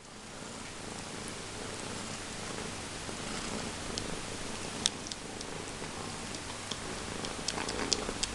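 Siamese cat purring steadily up close while it sucks on a terry-cloth bathrobe, with a few small clicks, more of them near the end.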